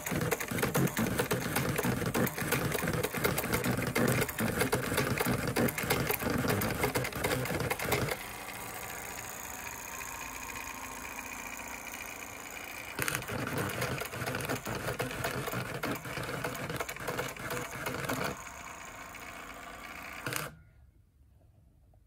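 Fortec four-colour plotting typewriter's pen-plotter mechanism drawing text: a rapid buzzing and clicking of the stepper motors and pen head, broken by a smoother, steadier whirr between about 8 and 13 seconds in, then clattering again before it stops abruptly about 20 seconds in.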